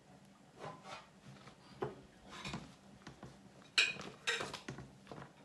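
Light kitchen clatter: scattered soft knocks of dishes and utensils, with a sharper clink about four seconds in and a few ticks after it.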